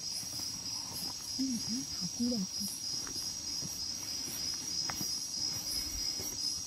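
Insects chirping in a steady, high, evenly pulsing trill.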